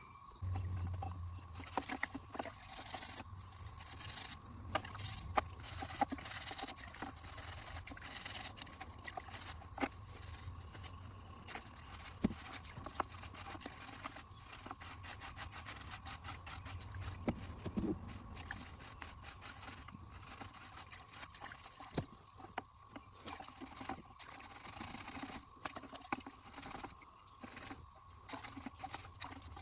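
A stiff bristle brush scrubbing a wet, greasy seat belt in degreaser, heard as irregular scratching with scattered clicks and knocks, over a faint steady high tone.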